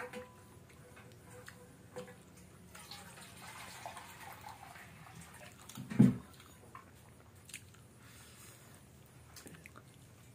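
Eating rice and dal by hand from a steel plate: soft wet squelching as fingers mix the rice, with scattered small clicks against the plate and one louder thump about six seconds in.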